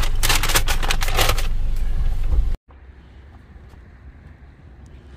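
Car idling with a paper takeaway bag rustling as it is handed in through the driver's window. About two and a half seconds in, the sound cuts off abruptly to a much quieter, steady outdoor hush with a few faint ticks.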